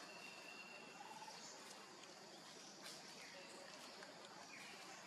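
Near silence: faint outdoor ambience with a few faint, short bird calls and the odd small click.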